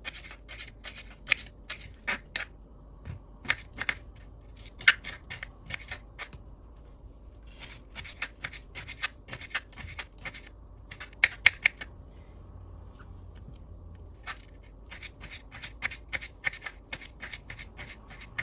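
Kitchen knife chopping soft cabbage leaves on a wooden cutting board: runs of quick taps as the blade strikes the board, broken by short pauses between runs.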